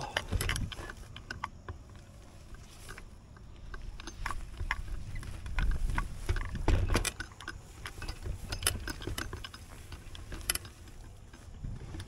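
Folding bicycle ridden off-road over rough, bumpy ground: irregular rattling and clicking from the chain, freewheel and frame, with heavier thumps over bumps about half a second in and again around six to seven seconds in.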